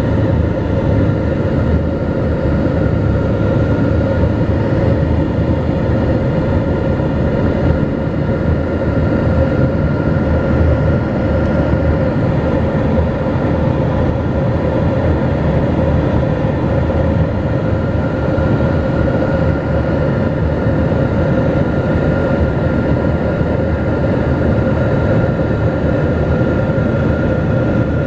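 Cabin noise of a Dornier 228 twin-turboprop with its engines running: a steady, loud propeller and engine drone with a few held whining tones over a deep rumble.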